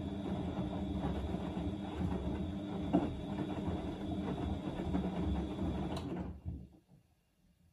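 Siemens Extraklasse XL110A front-loading washing machine tumbling laundry in its wet drum during the easy-care 40° main wash, the motor humming with a steady high whine, and one knock from the drum about three seconds in. About six seconds in the motor whine cuts off and the tumbling dies away as the drum comes to rest, a pause between the cycle's short tumbles.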